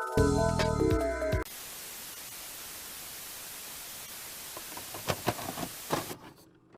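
About a second and a half of electronic tones over a low buzz, cut off abruptly by steady static hiss. A few crackles come near the end, and then the hiss fades out.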